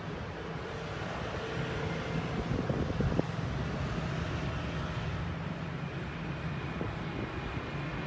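Steady city street traffic: engines running and wind on the microphone, with a couple of brief knocks about three seconds in.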